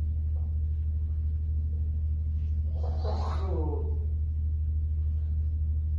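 A steady low hum runs throughout, with a brief murmured voice about three seconds in.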